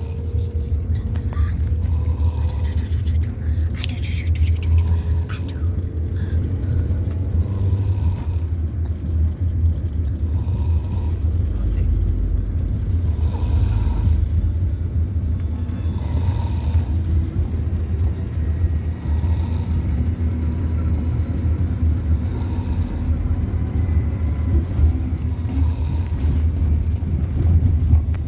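A young child snoring in regular breaths while asleep sitting up, over a loud, steady low rumble.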